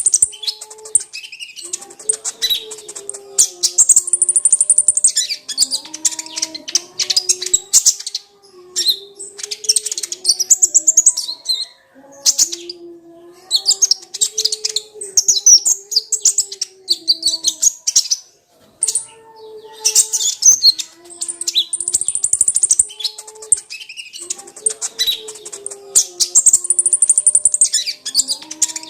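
Kolibri ninja sunbird singing in fast, high-pitched chirping trills, in bursts of a few seconds with short pauses, energetic full song. A lower line of tones stepping between notes runs beneath the bursts.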